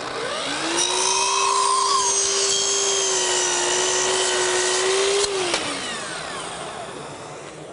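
Festool sliding compound miter saw starting up, running steadily with a high whine while cutting a kerf into a wooden auxiliary fence, then switched off about five seconds in and winding down.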